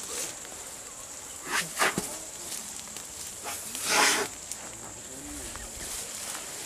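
A steady high insect drone with faint voices in the background, broken by three short rustling bursts of noise; the loudest comes about four seconds in.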